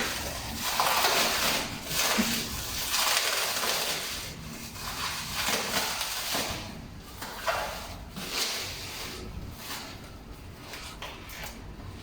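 Packaging being handled while a mannequin is unboxed: irregular rustling and crinkling, louder in the first few seconds and softer towards the end.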